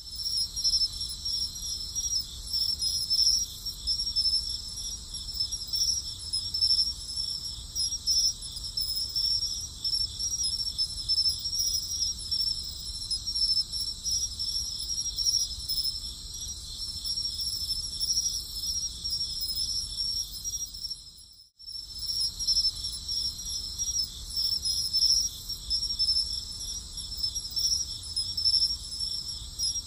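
A steady chorus of chirping insects, high-pitched and finely pulsing. It cuts out for a moment about two-thirds of the way through, then starts again.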